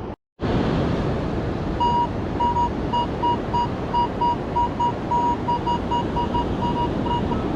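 A metal detector's tone beeping about three times a second with beeps of uneven length, as over a buried target, against steady surf and wind noise.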